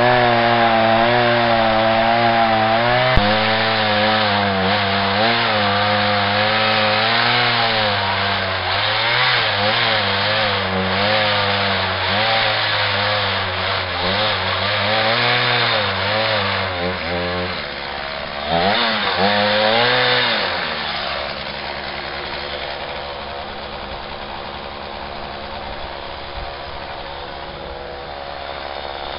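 Gas chainsaw cutting into a wooden log, its engine pitch rising and falling under load as the cut goes. About twenty seconds in it revs once more and then settles to a steady idle.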